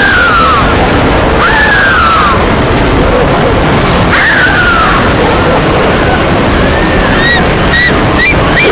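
A herd of animals stampeding: a dense, loud, continuous rumble of hooves. Over it come drawn-out calls that rise and fall, near the start, about a second and a half in and about four seconds in, then several short high calls near the end.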